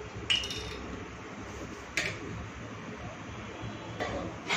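Steady low background hum with two short, sharp knocks, about a third of a second in and about two seconds in, as a sauce bottle is shaken over a steel bowl; another knock comes near the end.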